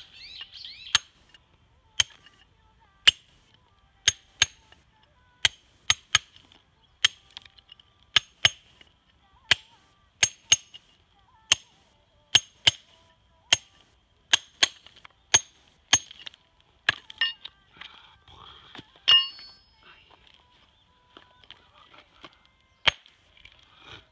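A hammer striking a rough Japanese natural whetstone, an Okudo/Renge suita from Umegahata, Kyoto, again and again. It gives sharp, ringing clinks roughly once a second, with a longer clattering strike a little past the middle. The blows dress the stone by splitting it along its weak seams, and the ring of each blow is listened to as a tap test for where the stone is weakly bound.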